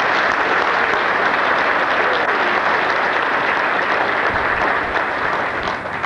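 Audience applauding, a steady dense clapping that dies away at the very end.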